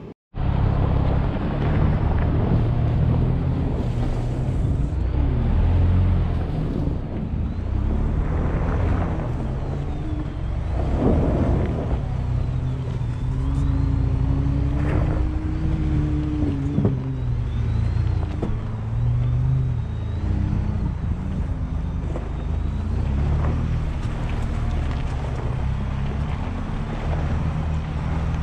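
Ford Bronco driving along an off-road trail: a steady, loud low rumble of engine and tyres, with a faint wavering engine tone rising and falling as it goes.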